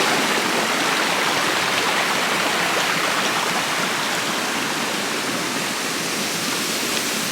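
Shallow rocky stream with a small waterfall, water rushing steadily over stones.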